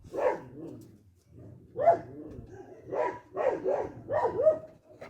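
A dog barking and yipping in short calls, about six of them, with a brief pause about a second in.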